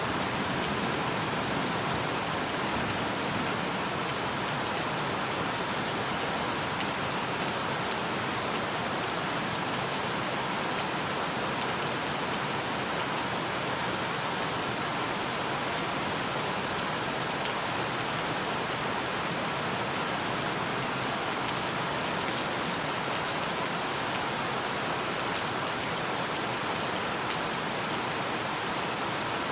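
Steady rain falling, an even hiss of many drops that holds the same through the whole stretch.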